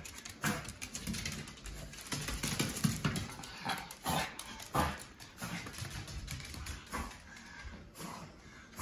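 Small Shih Tzu–Pekingese mix dog making a string of short grunting and whimpering noises while it scrabbles about on a hardwood floor, worked up just after its bath.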